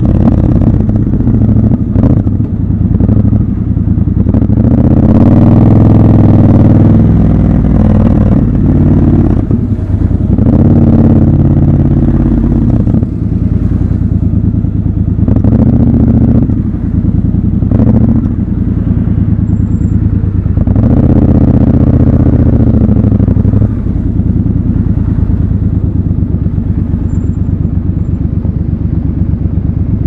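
Triumph Scrambler 1200 XC's 1200 cc parallel-twin engine pulling through city traffic, its pitch rising and dropping back several times as the bike accelerates, shifts and eases off, then running more steadily over the last few seconds.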